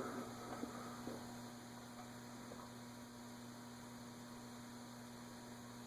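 Casablanca Delta II ceiling fan's K55-type motor running, a faint steady electrical hum with a second tone an octave higher; its stiff bearings have been freed with WD-40 and no bearing noise stands out.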